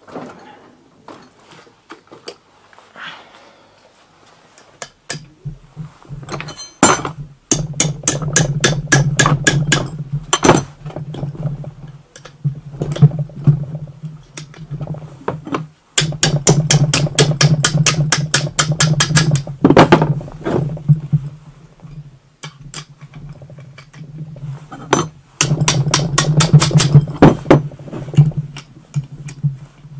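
Ratchet wrench working loose the cylinder head nuts of a two-stroke moped engine. Runs of rapid metallic clicking, several a second, sound over a steady low buzz, with brief pauses a few times.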